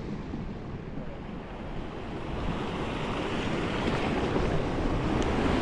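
Rushing water of a mountain waterfall, a steady roar that grows louder from about halfway through, with wind buffeting the microphone.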